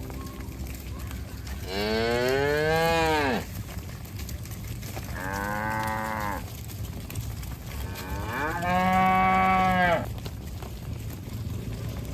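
Cattle mooing: three long moos. The first rises and then falls in pitch, the second is shorter and quieter, and the third is the loudest.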